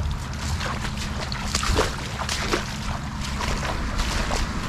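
Shallow water sloshing and splashing, with a run of short, sharp splashes and clicks over a steady low wind rumble on the microphone.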